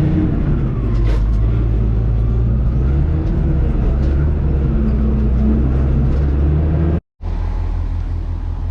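Heavy-equipment diesel engine running steadily under load. About seven seconds in the sound cuts out briefly and comes back as a more evenly pulsing engine note.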